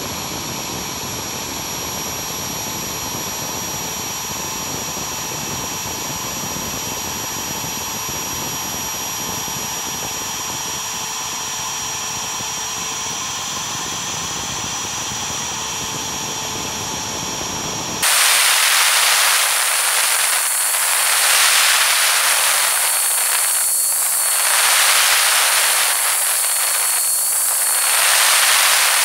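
Router spindle on an MPCNC machine running a two-flute up-cut endmill through thin steel sheet: a steady hiss with thin high whining tones. About two-thirds of the way in it changes abruptly to a louder, high, hissy sound that swells slowly up and down, the cutting sped up tenfold.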